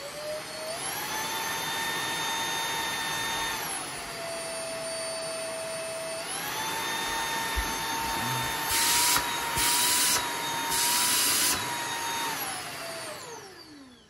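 MooSoo K17U cordless stick vacuum's 250-watt brushless motor spinning up with a rising whine and running at high power. About four seconds in it drops to a lower speed setting, and about two seconds later it climbs back to full power. Three loud rushes of air come between about nine and eleven seconds, and the motor winds down with a falling whine near the end.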